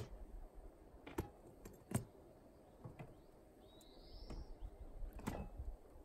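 Faint outdoor ambience with scattered light knocks and clicks, about one a second, as things are handled at a table. A short chirp from a small bird about four seconds in.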